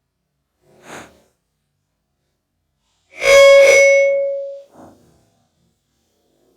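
An iPhone sound effect played back slowed down: a faint short sound about a second in, then a loud ringing tone with a low hum beneath, lasting about a second and a half from about three seconds in and fading out.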